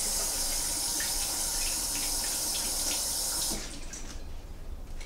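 Kitchen sink tap running while hands are washed under it. The water shuts off suddenly about three and a half seconds in, leaving a few faint small knocks.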